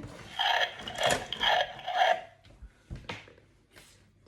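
Plastic toy mechanism of a Burping Hippo game ratcheting, a run of about four clicking pulses roughly half a second apart, then a few scattered clicks.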